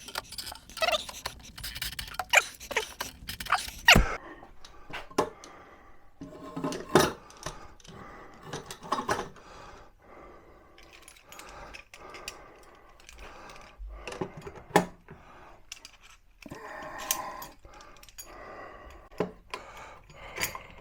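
Workshop handling noise: a series of clicks, clinks and knocks of hard objects being moved and set in place, with one heavy knock about four seconds in.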